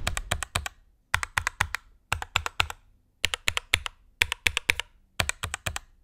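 Typing on the CU65, a 65% aluminium hot-swap mechanical keyboard fitted with Durock L7 linear switches. Six quick runs of keystrokes, five or six clicks each, come about once a second with brief pauses between.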